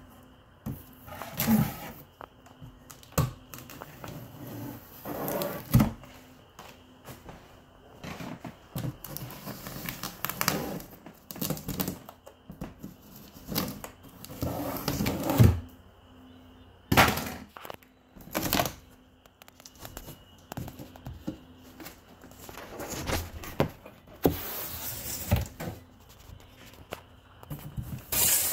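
A cardboard shipping box being opened by hand: a table knife slitting clear packing tape, with irregular scrapes, rips and knocks of cardboard flaps, and plastic wrapping crinkling near the end.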